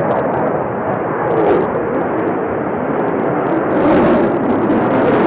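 Twin jet engines of a Sukhoi Su-35 fighter in a display: a loud, steady rushing noise with a few sharp crackles in the first second and a half, growing louder and brighter about four seconds in.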